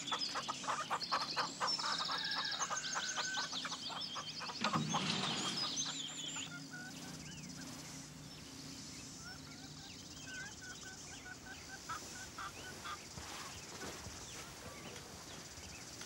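Farmyard fowl clucking with small birds chirping, and one louder fowl call about five seconds in. After about seven seconds only faint bird chirps remain.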